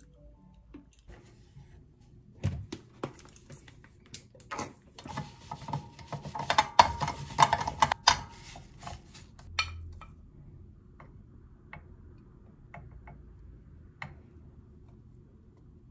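Kitchen handling sounds: a run of sharp clicks and knocks, then a few seconds of a paper towel rubbing oil over the waffle maker's plates. Near the end come a few scattered light clicks as tongs set croissant dough on the plate.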